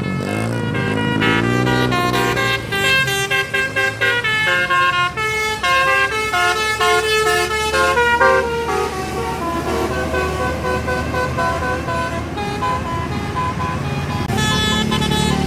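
Tour bus 'telolet' multi-tone musical air horn playing a quick melody of short stepped notes, opening with sliding tones and softening after about nine seconds, over a steady engine rumble. A lower horn tone comes in near the end.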